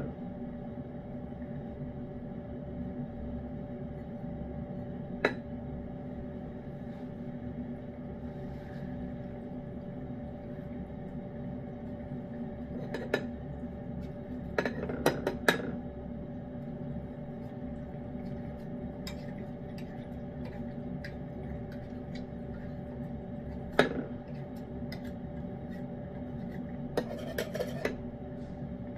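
A cat eating wet pâté cat food from a dish, with scattered sharp clinks of the dish, a few clustered together, over a steady background hum.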